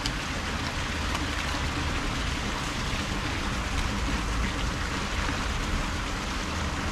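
Steady rushing of water flowing in a canal, with a low rumble underneath.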